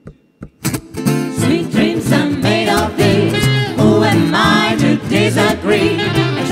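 Three singers in close vocal harmony, accompanied by acoustic guitar and piano. The music starts about half a second in, after a few faint clicks.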